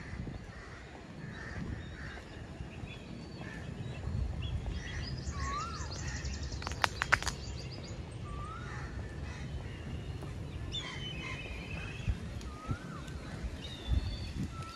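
Birds calling among the trees: short rising-and-falling calls repeated every few seconds, with a few higher chirps, over a low steady rumble. A few sharp clicks come close together about seven seconds in and are the loudest sounds.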